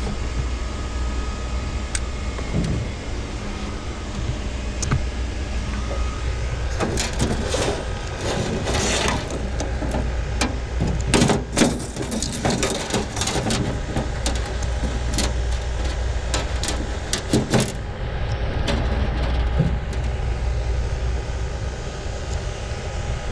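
A steady low engine hum with faint steady tones. From about seven seconds in to about eighteen seconds in, a cluster of sharp clicks and knocks sounds over it.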